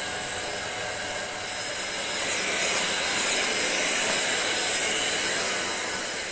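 Corded stick vacuum cleaner running steadily with a high whine, growing a little louder from about two seconds in.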